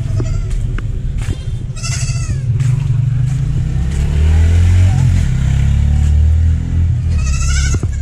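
Young goats bleating: two short high calls, about two seconds in and near the end. Under them a low engine rumble, as from a passing vehicle, swells through the middle.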